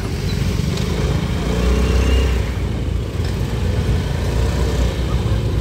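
Road traffic: motor scooters and cars running and passing close by, a steady engine rumble.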